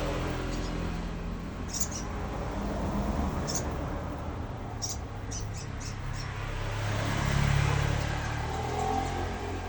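Short, high squeaky chirps from a sogon bird, singly and then in a quick run of four or five about five seconds in, over a steady low rumble that swells briefly around seven and a half seconds in.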